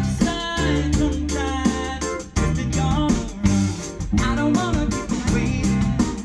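A live band playing a song: a male lead vocal over keyboards, bass guitar, electric guitar and drum kit, with a steady beat.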